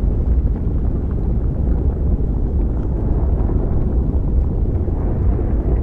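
Steady, deep rumble of a volcanic lava-field ambience, even throughout with no distinct events.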